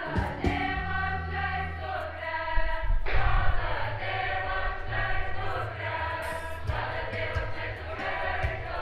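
A mixed choir of young women and men singing together, with held notes that change pitch every second or so.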